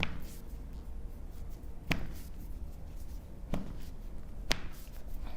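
Foot and toe joints cracking during a chiropractic foot adjustment: four short, sharp pops, unevenly spaced a second or two apart.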